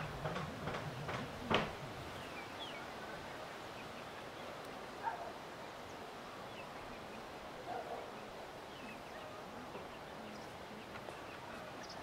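A hen scratching at the ground among grass and leaf litter, a quick run of scratchy clicks in the first second and a half. Then a faint outdoor background with a few short, soft clucks.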